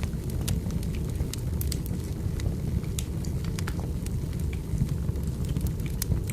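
Firewood burning, crackling with irregular sharp pops and snaps over a steady low rumble.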